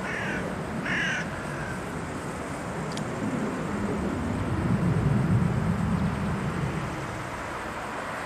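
Diesel engine of a former East German V100 diesel locomotive running as it approaches, a low rumble that swells about halfway through and then eases. A bird calls twice near the start.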